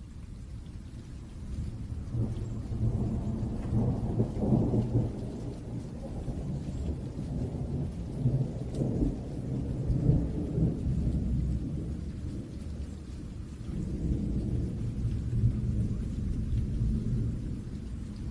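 Thunderstorm: rain hissing steadily while deep thunder rolls and rumbles in long swells, building about two seconds in, peaking around four and ten seconds in, easing, then rolling again near the end.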